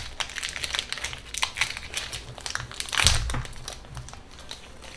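Foil Pokémon booster pack wrapper crinkling as it is handled and torn open, a rapid run of crackles with a louder crinkle about three seconds in.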